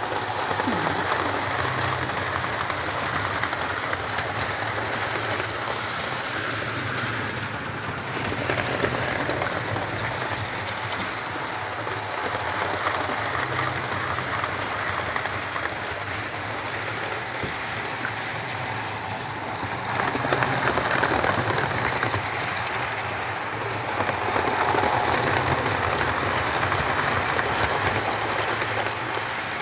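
Model Class 67 locomotives hauling coaches and a DVT running along the model railway track, a steady rattling whir that grows louder as the trains pass close by, about 8, 20 and 24 seconds in.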